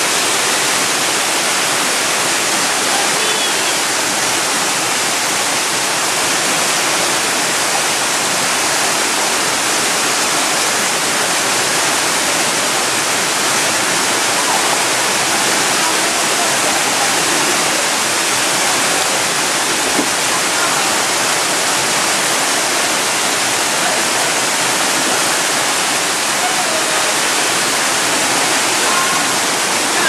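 Steady rushing of a mountain waterfall and stream cascading over rocks, a constant even roar of water with no breaks.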